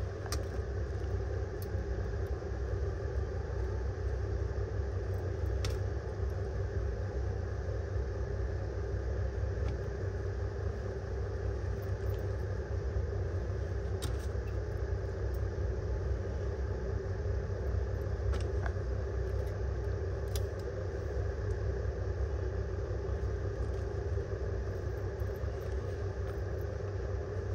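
Steady low background rumble that does not change, with a few faint light clicks scattered through it.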